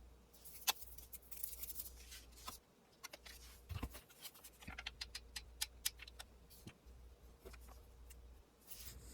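Faint, scattered clicks and taps of hands working paper and lace on a handmade journal, with a quicker run of clicks in the middle.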